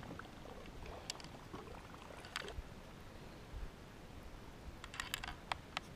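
Quiet open-water ambience from a canoe, broken by a few faint sharp clicks and knocks of fishing tackle and canoe being handled, with a quick irregular run of clicks near the end.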